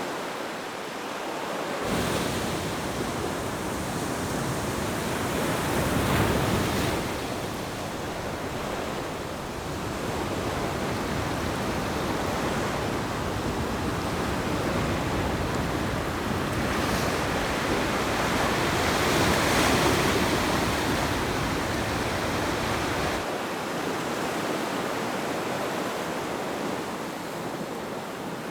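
Surf rushing onto a shore in a steady wash of noise, swelling louder about six seconds in and again about twenty seconds in.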